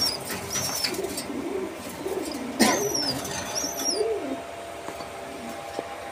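Domestic pigeons cooing in their cage, low wavering coos repeated through the first four seconds or so. High, short chirps from another bird come in several times, and a sharp knock sounds about two and a half seconds in.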